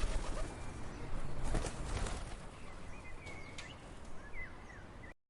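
Outdoor background noise with a low rumble, and faint short bird chirps twice in the second half; the sound cuts off suddenly near the end.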